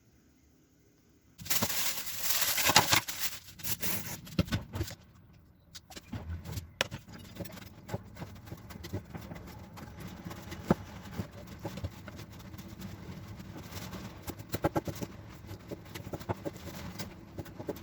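Food sizzling in hot oil in a pan. It starts suddenly about a second in with a loud burst as ingredients go in, then settles into a steadier sizzle broken by spatula scrapes and sharp clicks.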